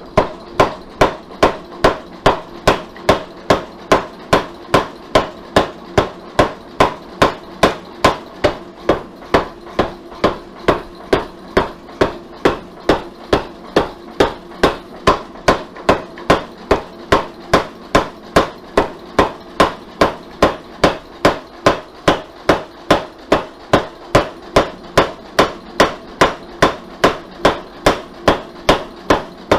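Power hammer striking a hot San Mai billet in a steady run of about two blows a second over a steady hum, forging the forge-welded steel layers together.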